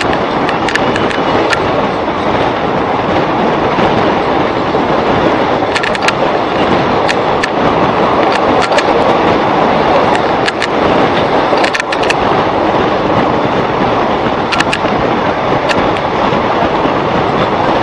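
Passenger train coaches in motion, heard from on board: a steady rumble of wheels on rail with sharp clicks now and then. The clicks come in a cluster about six seconds in and another near twelve seconds.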